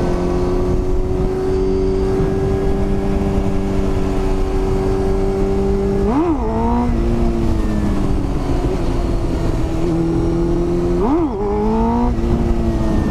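Motorcycle engine running at steady high revs while riding, with wind noise on the microphone. Twice, about six and about eleven seconds in, the revs flick up and drop sharply, then climb again from a lower pitch, as the rider works the throttle through a wheelie.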